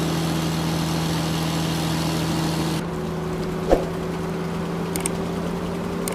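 Steady motorboat engine hum. About three seconds in it changes abruptly to a thinner hum, a sharp knock sounds shortly after, and faint clicks come near the end.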